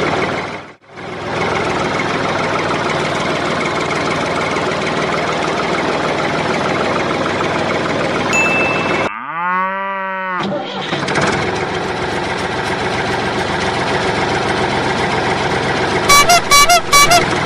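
Edited soundtrack of a tractor engine sound with music mixed in. It drops out briefly about a second in, a sweeping swoosh effect comes about halfway through, and a quick run of cartoonish chirps comes near the end.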